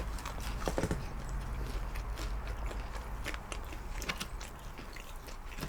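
People eating fried chicken strips and fries: scattered small crunches and clicks of chewing and food handling.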